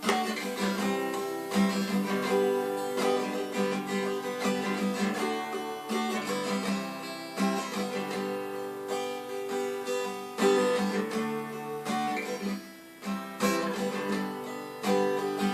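Acoustic guitar strummed in a steady rhythm, chords ringing with regular strokes.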